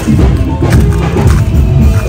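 Loud music with heavy bass and drums.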